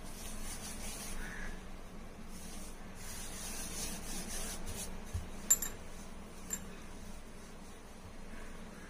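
Hands pressing and rubbing a round of wheat dough flat on a floured countertop: soft, faint rubbing with a couple of light knocks past the middle, over a faint steady hum.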